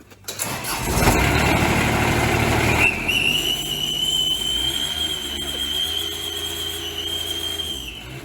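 Lawnmower engine starting and running, with a clip-on exhaust 'turbo whistle' that begins a steady high whistle about three seconds in, sliding up briefly and then holding one pitch.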